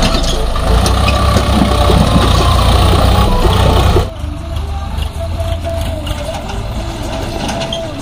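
Swaraj 744 FE tractor's three-cylinder diesel engine running steadily as it pulls a trailer loaded with mud over a dirt track. About halfway through it suddenly becomes quieter and more distant.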